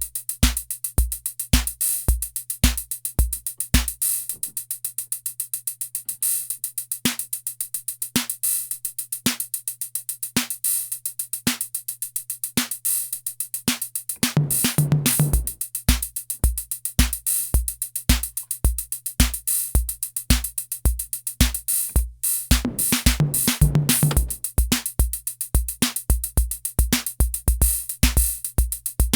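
Korg KR-55 analog rhythm machine playing a steady preset drum pattern, dry: low bass-drum beats under sharp higher percussion hits. The bass drum drops out for a few seconds near the start, and a dense drum fill comes about halfway through and again about three-quarters through.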